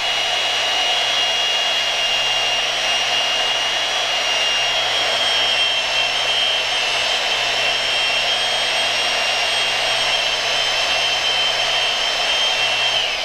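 Ridgid 700 power drive's electric motor running steadily with a high whine while a can of foaming cutting oil is sprayed into its die head.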